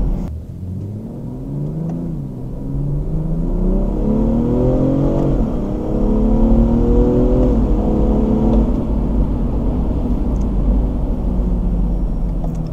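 BMW M340i's turbocharged 3.0-litre B58 inline-six, with its stock intake, heard from inside the cabin under acceleration. The engine pitch climbs twice and drops back between climbs, then holds steady in the latter half. It carries a sucking, whooshing induction noise, with the exhaust valves closed.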